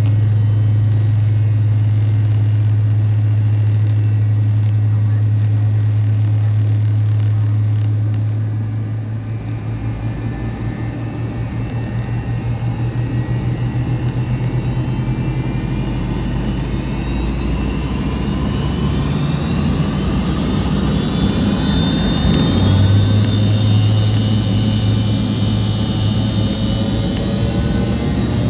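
Jet airliner engines heard from inside the cabin: a steady low hum, then about halfway through the engines spool up for takeoff, with a whine that rises in pitch and holds high as the sound grows louder.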